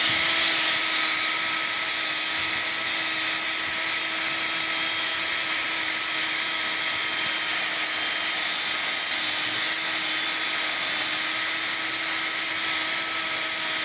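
Electric drill spinning a polishing pad against a plastic headlight lens, running at a steady speed on its second speed setting: a constant whine over a hiss of the pad on the lens.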